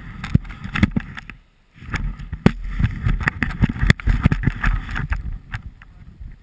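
Irregular clattering knocks and scuffs of snowboard gear being handled in the snow, close to a helmet-mounted camera, over low wind buffeting on the microphone. The knocks thin out near the end.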